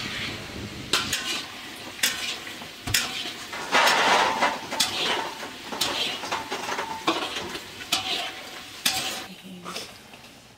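Metal trays and dishes clinking and scraping, with hot oil sizzling as dough balls fry in a wok, and a louder rush of noise about four seconds in.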